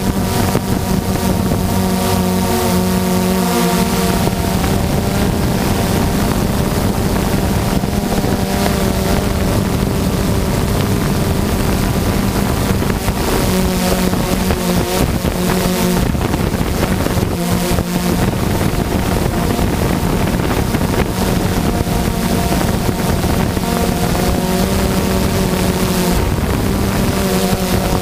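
Multirotor drone's electric motors and propellers humming steadily, heard through the onboard camera's microphone, with wind noise hissing over it. The higher tones of the motor hum waver slightly as the motors adjust speed.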